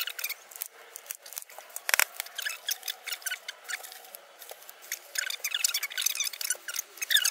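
Paper backing crackling and rustling as it is handled and peeled from double-sided tape on a PVC clock frame, with small clicks from the frame being pressed into place and one sharp tap about two seconds in.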